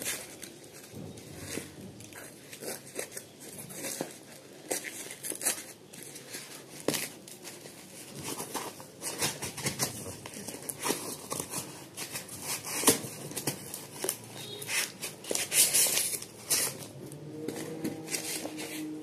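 Cardboard box flaps and plastic packaging being handled and pulled open by hand: irregular rustling and crinkling with sharper crackles and tearing sounds now and then.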